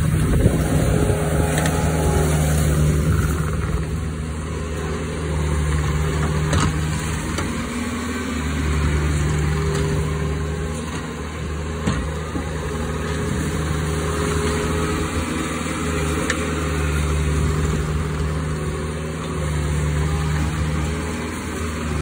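Compact track loader's diesel engine running while pushing and piling snow, its note swelling and easing every few seconds as the load changes, with an occasional sharp knock.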